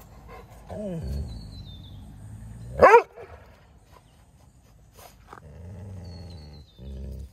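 A dog growling low, with one loud, short bark sweeping up in pitch about three seconds in and more growling near the end: a nursing mother dog warning another dog away from her puppies through the fence.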